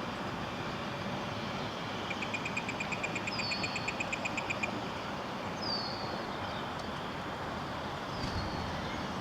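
Steady background hum of city traffic, with a rapid high trill of about eight pulses a second for a couple of seconds and three short, high downward chirps spaced a couple of seconds apart.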